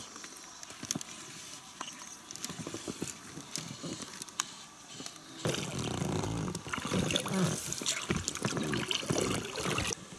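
Rowing an inflatable boat on a river: faint clicks and water for the first few seconds, then from about five seconds in louder splashing and knocking as the oar is worked.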